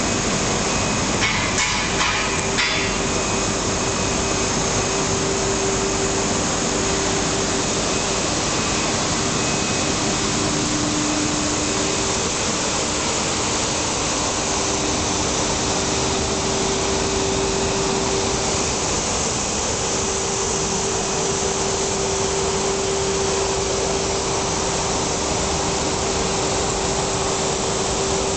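Colines 200 bubble-film sheet extrusion line running: a steady machine noise with a constant hum. There is a brief rattle of clicks about a second in.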